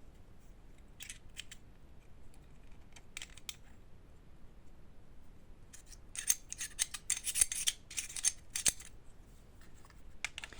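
Small parts of a gas airsoft pistol clicking and scraping as it is handled during reassembly. A few separate clicks come in the first seconds, then a dense run of clicks and rattles from about six to nine seconds in.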